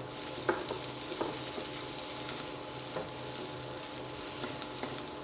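Indian borage leaves frying in oil with dal, garlic and chilies in a kadai, fried until the stiff leaves turn soft: a steady sizzle with a few light clicks of a spatula stirring.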